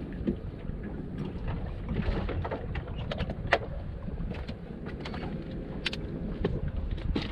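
Steady low rumble of a boat on the water, with a few sharp clicks and knocks scattered through it.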